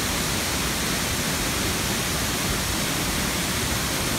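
Tall waterfall plunging into a plunge pool, heard close up: a steady, loud rushing of falling water.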